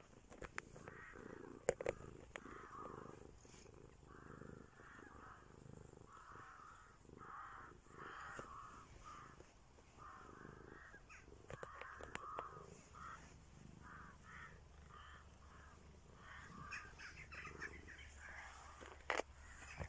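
Domestic cat purring close to the microphone, a rough sound in short repeated pulses, with two sharp knocks about two seconds in and near the end.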